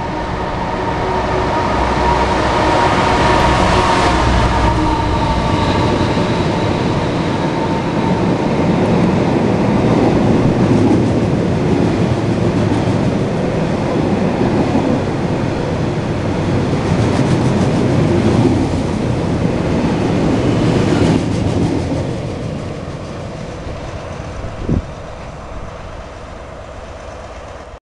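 A Class 59 diesel freight locomotive, with its EMD two-stroke engine, comes past loud, followed by a long train of stone hopper wagons rumbling and clicking over the rail joints. The noise fades as the train draws away, with a single short knock near the end.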